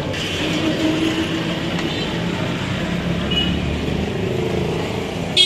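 Steady street traffic: a continuous rumble of passing motor vehicles. A high-pitched vehicle horn starts to sound right at the very end.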